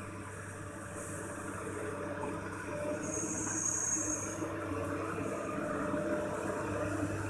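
Long-reach hydraulic excavator's diesel engine running steadily under load as the boom digs and lifts the bucket, growing a little louder about three seconds in. A thin high whine comes in for about a second and a half at the same point.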